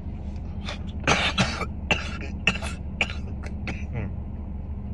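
A man coughing into his fist, a run of hard coughs while smoking, the loudest about a second in and then several weaker ones.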